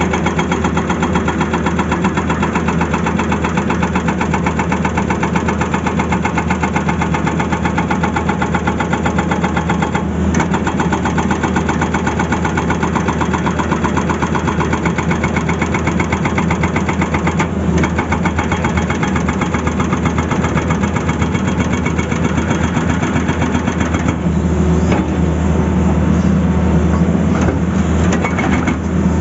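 Tata Hitachi excavator's diesel engine running steadily with a fine, rapid pulsing, growing louder and heavier about five seconds before the end.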